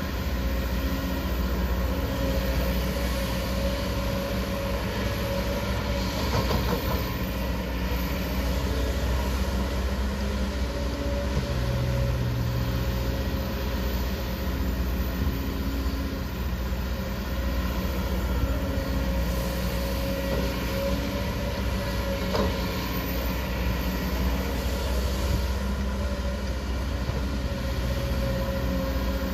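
Diesel engine of a 20-ton Kobelco excavator running steadily under load while it digs, with a deep rumble and a few faint clanks from the working machine.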